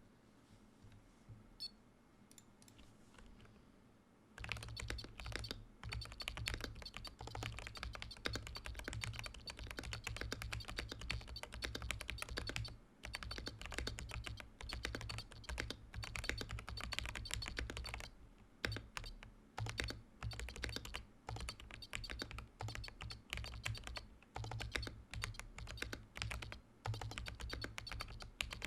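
Command 65 prototype mechanical keyboard with tactile Holy Panda X switches, POM plate and Domikey Vintage keycaps being typed on steadily, with short pauses. The typing starts about four seconds in, after a few faint clicks. A high beep from the keyboard's buzzer, which is switched on, sounds along with the keystrokes.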